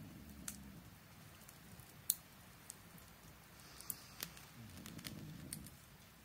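Small campfire crackling, with a handful of sharp pops scattered through, the loudest about two seconds in. A faint low rumble swells near the start and again about five seconds in.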